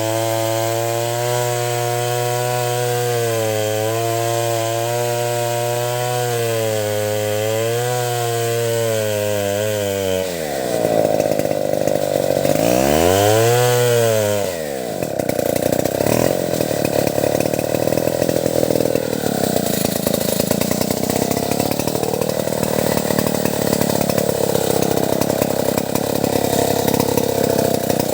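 Stihl 070 two-stroke chainsaw running at a steady pitch for about ten seconds. It then swings up and down in pitch and goes on under load, rougher and noisier, as it cuts into the acacia wood.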